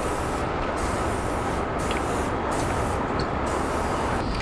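Aerosol spray-paint can hissing in five short bursts with brief pauses between them, as letters are sprayed onto the wall.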